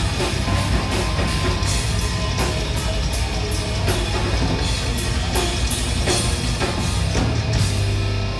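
Live heavy metal band playing: distorted electric guitar and bass over a drum kit with frequent cymbal crashes.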